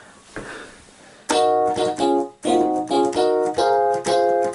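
Yamaha DX11 FM synthesizer playing the same chord over and over, about two or three strikes a second, starting about a second in. The chords are played evenly to test its MIDI output and key velocity.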